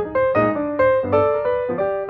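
Piano music: a melody of struck notes, about two or three a second, each fading before the next.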